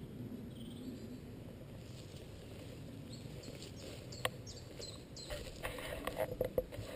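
A bird sings a quick run of short, high chirps about halfway through. Then footsteps crunch through dead leaves and broken twigs, irregular crackles that grow louder near the end.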